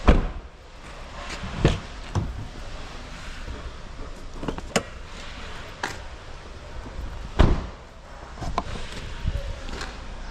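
A series of irregular thumps and knocks, the loudest right at the start and about seven seconds in, with lighter clunks between.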